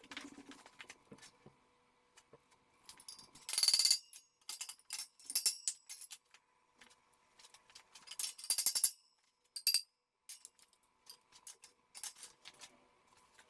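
Metal tools and parts clinking and rattling as they are picked up and handled. There are a few sharp, jingling rattles, the loudest about 3.5 s and 8.5 s in, with lighter clinks and knocks between them.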